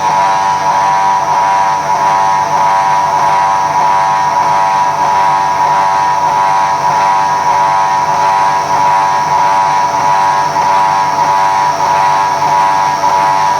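GOODA automatic circular saw machine running steadily, with a loud, constant whine.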